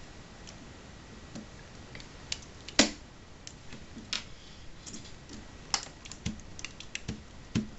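Scattered light clicks and taps of a WSI die-cast Hitachi Zaxis 870 model excavator being handled on a wooden tabletop, its removable counterweight and boom being worked, with one sharper knock about three seconds in.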